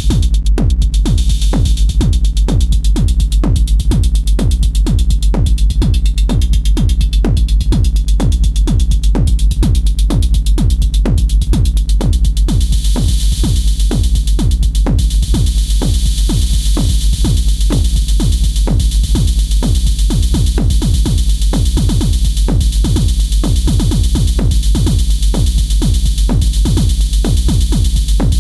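Electronic dance music with a fast, steady drum-machine beat over heavy, constant bass; a brighter hissing layer in the highs comes in about twelve seconds in and carries on.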